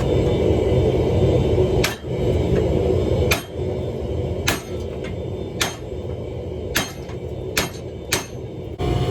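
Hammer blows on steel on an anvil while forging a steel ball bearing: about seven separate strikes, roughly a second apart, each with a short ring. A steady roar runs for the first two seconds, stops, and comes back near the end.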